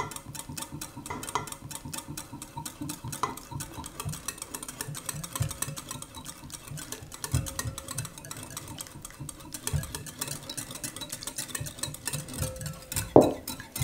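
Instant jelly mixture being stirred in a bowl, a utensil scraping the bowl in fast, even strokes.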